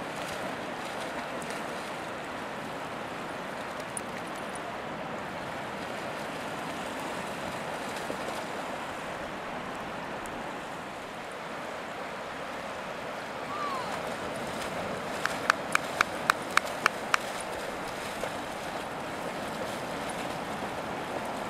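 Steady wash of shallow sea water and wind, with splashing as dogs run and play in the shallows. About two thirds of the way through comes a short falling squeak, then a quick run of about eight sharp clicks, some four a second.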